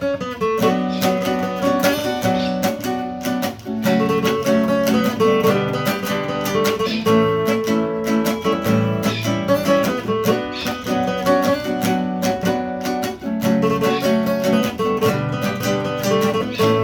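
Acoustic guitar strummed in a steady rhythm, playing a song's instrumental intro without vocals.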